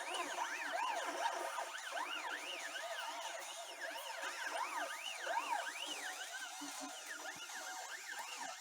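Stepper motors of a homemade CNC machine running a test program: a whine that rises and falls in pitch with each short move, about two moves a second, several axes overlapping.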